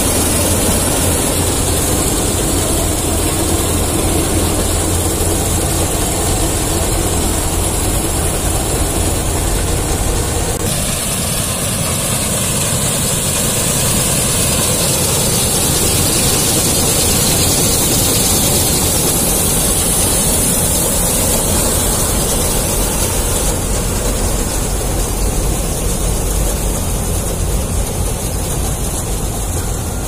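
K.Rama 1008 self-propelled combine harvester running while it cuts and threshes wheat: a loud, steady heavy diesel drone with a constant high hiss over it.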